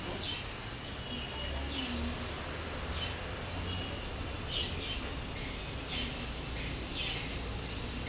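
Short high chirps from purple sunbirds at the nest, one every second or so, over a steady background hiss.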